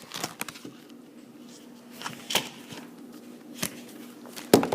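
Camera being handled and repositioned close to the microphone: a few scattered knocks and clicks, the loudest near the end.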